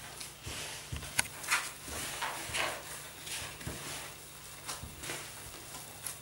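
Hands kneading soft, sticky dough in a bowl: irregular squelches, rustles and soft knocks of hands and dough against the bowl, with one sharp click about a second in.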